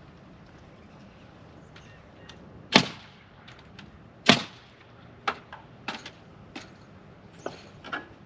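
Two sharp, loud bangs about a second and a half apart, the first almost three seconds in: nails being driven into a wooden rafter on stud-wall framing. A run of lighter clicks and knocks of wood and tools follows.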